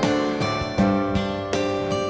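Background music: plucked guitar, with new notes or chords struck about every half second.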